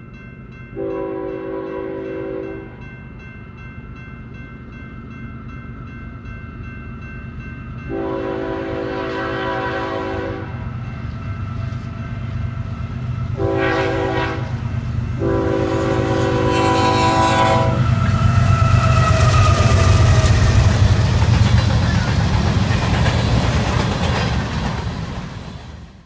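Nathan Airchime K5HL multi-chime locomotive air horn sounding the grade-crossing signal: long, long, short, long, with the last long blast ending about 18 seconds in. Under it, the freight train's diesel locomotive and wheels rumble, growing louder and loudest in the last third as the train passes.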